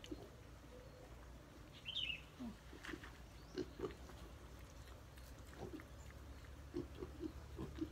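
Wild boar piglets giving short, scattered grunts as they feed on banana, with a brief high chirp about two seconds in.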